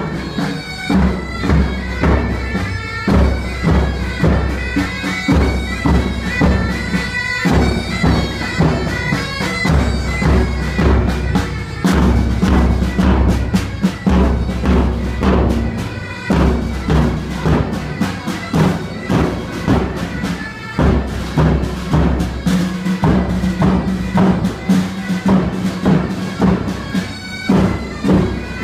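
Pipe band marching and playing: bagpipes sound a melody over their steady drone, while a bass drum keeps a march beat about twice a second.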